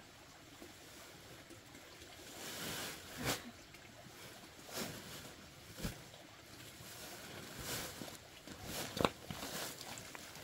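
Crushed stone gravel being scooped into a woven plastic sack: several separate sharp clatters of stones, with the sack rustling.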